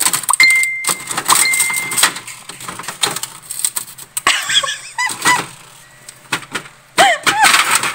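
Plastic freezer ice tray and ice bin being handled and twisted, with a run of clattering knocks and clicks and a thin high tone twice in the first two seconds. Nothing drops out: no ice has been made in the tray.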